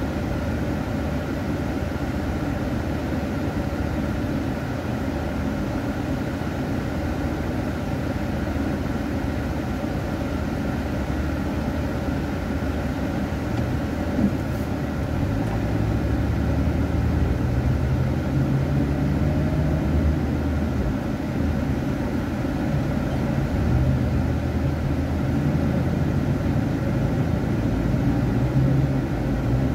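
Car cabin noise: a low engine and road rumble while creeping in traffic, growing a little louder and heavier about halfway through as the car moves off. A single click is heard shortly before that.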